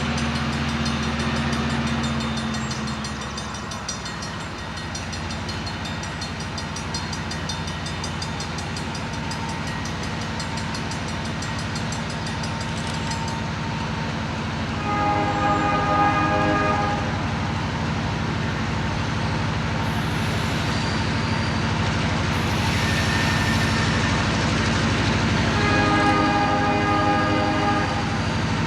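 Diesel locomotive working a yard switching move, its engine running steadily throughout, and its air horn sounding two blasts of about two seconds each, one about halfway through and one near the end.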